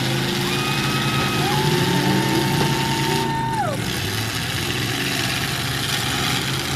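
Demolition-derby pickup trucks' engines running under load in a dirt arena, a steady low drone throughout. A high whine sits over it for a couple of seconds and glides down and stops about halfway through.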